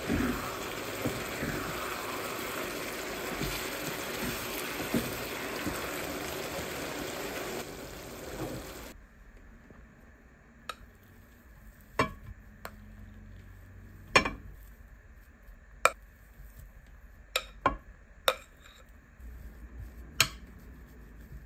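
Ground beef with chopped tomatoes, peppers and onion sizzling in a frying pan as a wooden spatula stirs it. The sizzle cuts off about nine seconds in. Then a metal spoon scoops mashed potato out of a glass bowl into a glass baking dish, with about eight sharp clinks of the spoon on glass.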